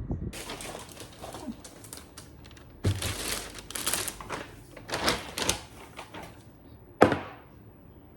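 Objects being handled: bursts of rustling and clicking clatter, with one sharp knock about seven seconds in.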